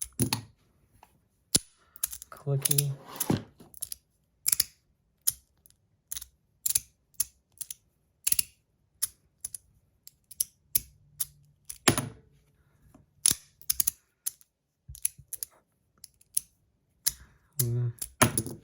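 Budget free-floating magnetic fidget slider being slid back and forth, its strong magnets snapping it into place with sharp, irregular clicks, about one or two a second.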